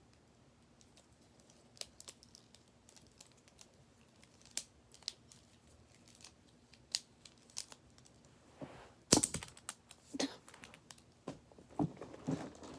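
A plastic fidget toy being handled: scattered light clicks and taps, busier near the end, with one louder clatter about nine seconds in.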